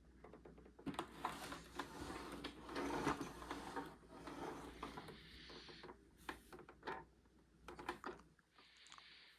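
Quiet handling noises: irregular rustling and scraping with scattered clicks and knocks, fading toward the end.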